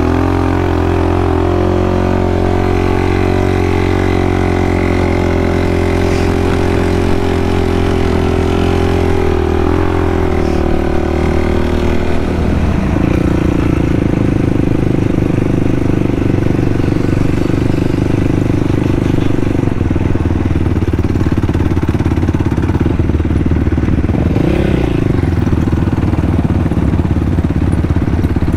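2020 Yamaha YFZ450R quad's single-cylinder four-stroke engine running steadily on a broken fuel pump relay that has been jimmied back together. Its note changes to a lower, rougher sound about thirteen seconds in.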